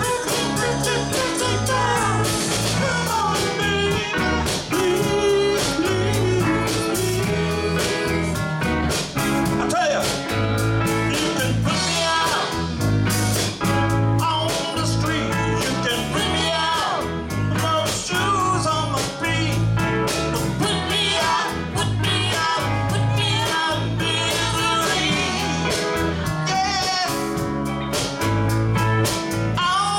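A live rock band playing: a woman singing lead over electric guitars, bass guitar, keyboard and drums with a steady beat.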